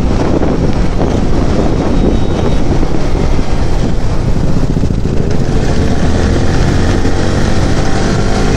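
Yamaha sport motorcycle riding at highway speed, around 60 km/h: steady wind rush on the camera microphone over the engine running underneath.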